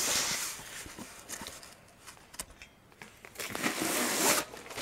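Packaging rustling and crinkling as an anti-static mat is pulled out of it, in two spells with a few light clicks between.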